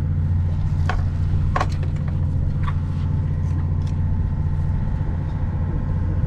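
Steady low drone of a fishing boat's engine running, with a few sharp clicks of gear being handled in the first three seconds.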